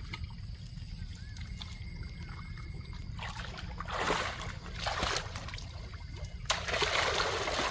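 People wading through shallow muddy water. Two short surges of splashing come about four and five seconds in, then steady churning splashes start about six and a half seconds in as they push forward through the water.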